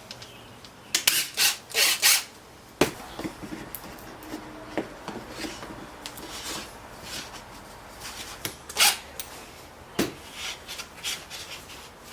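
Handwork on a wooden piece at the bench: four short scraping strokes about a second in, then scattered light knocks and clicks, with another stroke and a knock near the end.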